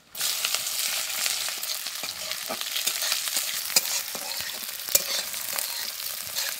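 Chopped onion dropped into hot oil with cumin seeds and dried red chillies in a steel kadai, breaking into a sudden sizzle and frying with a steady hiss. A metal spatula stirs and scrapes against the pan, giving scattered clicks.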